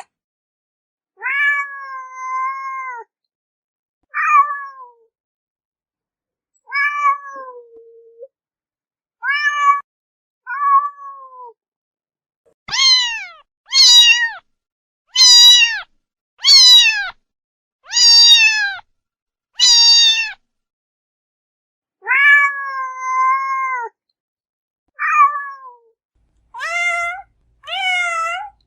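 A cat meowing over and over, about fourteen separate meows with silence between them. In the middle comes a run of six louder, higher-pitched meows that fall in pitch, about one every second and a half. The others are longer, lower, more drawn-out meows.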